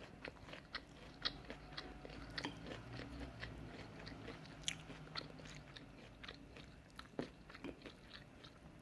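Faint, close-up chewing of udon noodles and stir-fried vegetables: irregular soft mouth clicks and wet smacks.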